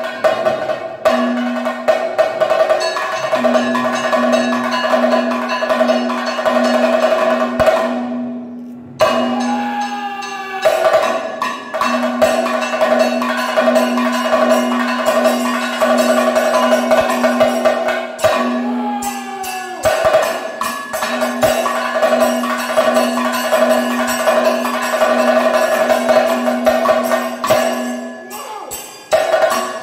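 Kathakali percussion accompaniment: drum strokes over a bright metal gong and cymbals ringing in a steady, fast rhythm. The beat briefly drops out twice, around 9 and 19 seconds in, under a short wavering, sliding sound.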